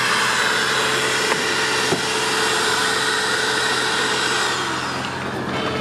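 A vacuum cleaner running steadily with a constant whine. Near the end its pitch starts to fall as the motor slows.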